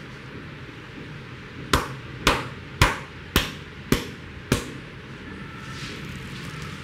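Six sharp, evenly spaced hand strikes of a barber's percussive head massage, about two a second, starting a little under two seconds in.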